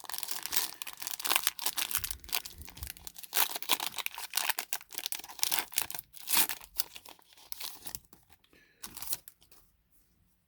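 Foil booster pack wrapper being torn open and crinkled by hand, a dense crackling that dies away about eight or nine seconds in.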